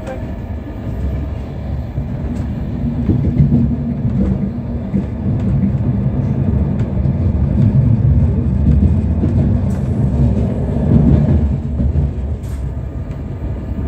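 Passenger train running, heard from inside the carriage: a steady low rumble that grows louder about three seconds in and eases off near the end, with a few faint clicks.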